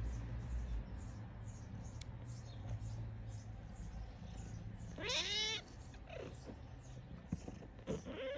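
A domestic cat gives one short meow about five seconds in, its pitch rising and then falling.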